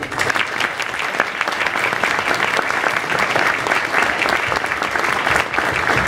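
Audience applauding, a steady patter of many hands clapping.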